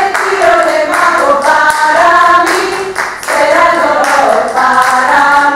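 Several voices singing unaccompanied, with hand clapping in time with the song.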